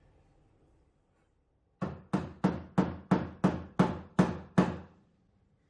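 A run of nine sharp, even knocks, about three a second, each with a short ring, starting nearly two seconds in.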